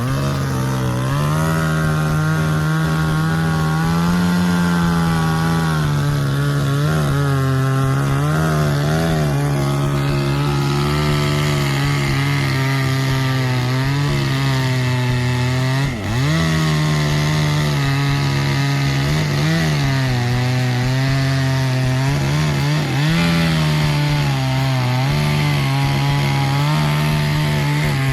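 Chainsaw running at high revs while cutting the felling notch into a tree trunk, its engine pitch sagging and recovering as the chain bites. The revs drop briefly about sixteen seconds in.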